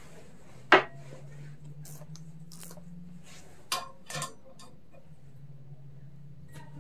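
Metal tools and lawn mower parts clinking during disassembly: one sharp clink about a second in, a double clink near the middle, and lighter ticks between, over a steady low hum.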